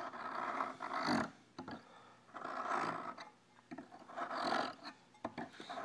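Steel hook blade being drawn back and forth across a bench-mounted file in about four long strokes, a rough rasping with the blade chattering against the file.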